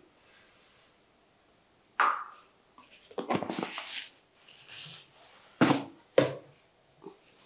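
Kitchen handling noises: dry dal grains falling into an aluminium pressure cooker, then a sharp metal clink with a brief ring about two seconds in, some clatter, and two sharp knocks near the end as a wall cabinet is opened.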